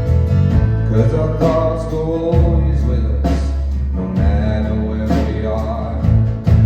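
Live band playing: a man singing over guitar, with held bass notes that change every couple of seconds.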